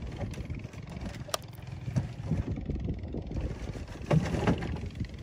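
Wind rumbling on the microphone over the water sounds of a small boat moving through shallow water, with a sharp click about a second and a half in and a louder knock around four seconds in.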